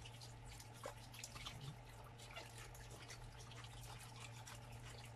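Faint running tap water splashing and dripping as okra pods are rinsed under it in a stainless steel sink, many small irregular splashes. A steady low hum underneath.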